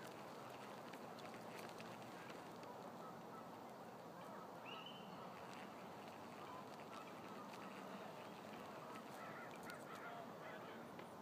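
Faint, steady outdoor background noise with a few scattered distant bird calls, one short call about four and a half seconds in.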